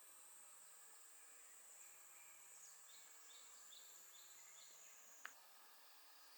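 Faint, high, steady cicada buzz that cuts off about five seconds in. A small bird gives a run of five short chirps midway, and a single sharp click comes just as the buzz stops.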